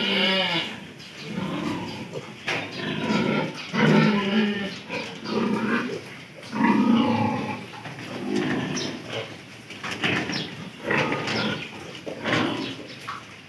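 Piglets grunting and squealing in a pen, one call after another about every second.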